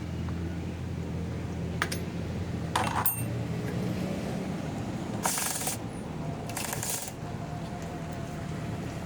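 A few light metallic clinks, with two short hisses a little past the middle, over a steady low hum.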